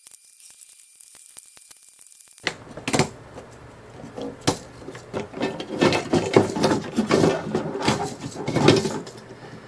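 Handling noise from a Mackie 1202-VLZ3 mixing desk being taken apart: its steel chassis, circuit boards and wiring harness knock, rattle and click irregularly. A faint hiss comes first, and the knocking starts suddenly about two and a half seconds in.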